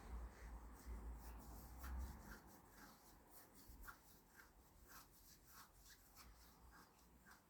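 Faint, irregular scratching ticks, about two or three a second, at near-silent level. A low rumble runs under them for the first two seconds.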